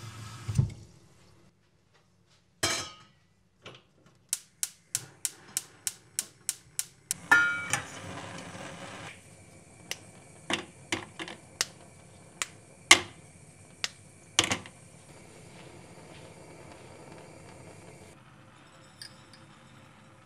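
Gas hob igniter clicking about three times a second before the burner catches with a short rush, then a faint steady hiss of the flame. A steel pot is knocked down just before, and steel pans clink several times afterwards.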